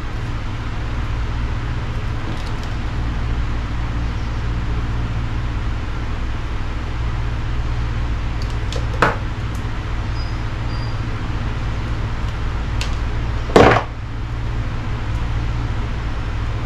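Steady low hum, with a light click about nine seconds in and a single sharp knock of a hand tool or metal part a few seconds before the end.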